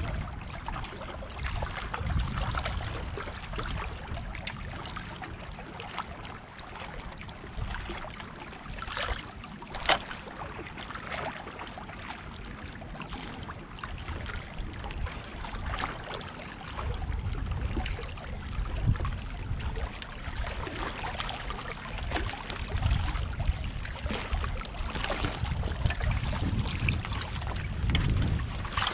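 Small waves lapping and trickling against shoreline rocks, with gusts of wind rumbling on the microphone and a single sharp tap about ten seconds in.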